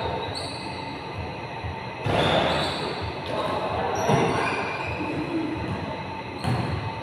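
Basketball bouncing and sneakers squeaking on a gym court, echoing in a large hall, with sharper thuds about two, four and six and a half seconds in.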